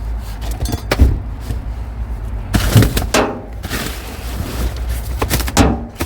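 Junk being handled and rummaged through: a run of clunks and knocks, several with a short rattling ring, over a steady low rumble.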